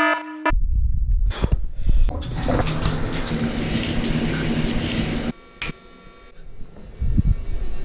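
Water rushing and splashing in a bathtub, cutting off suddenly about five seconds in; quieter knocks and rustling follow. A short pitched tone sounds at the very start.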